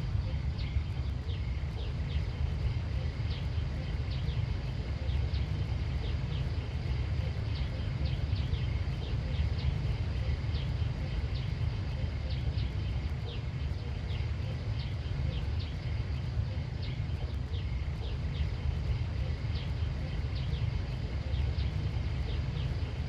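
Outdoor ambience: a steady low rumble with many short, high chirps repeating irregularly throughout, over a faint steady high tone.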